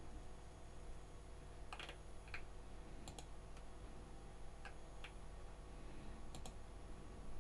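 A handful of short, separate clicks from someone working a computer, about six spread over several seconds, some close together in pairs, over a faint steady hum.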